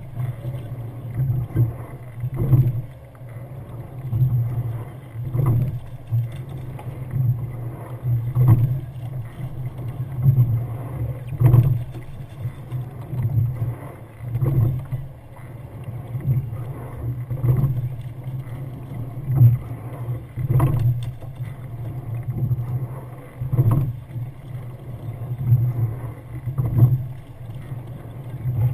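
Rowing eight under way at a steady rhythm: a surge and thud from the oars and slides about every second and a half with each stroke, over the steady rush of water along the hull.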